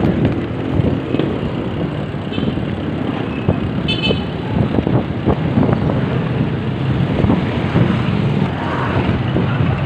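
Motorcycle riding through street traffic: engine and road rumble, with a short vehicle horn beep about four seconds in.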